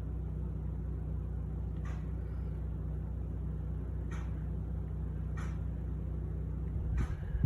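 A steady low hum with a few faint ticks, becoming rougher near the end.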